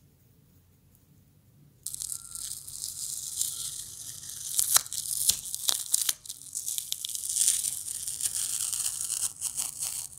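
Black tape being peeled off the edge of painted canvas paper: a crackling rip with sharp clicks, starting suddenly about two seconds in after near silence.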